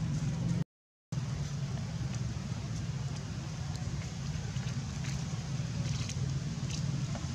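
Steady low background rumble, cut off by a brief dropout to silence just under a second in, with a few faint ticks above it.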